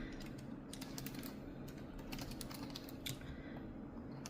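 Long fingernails typing on a computer keyboard: irregular key clicks with the nails tapping the keycaps, bunched in the first second or so and coming sparser afterwards.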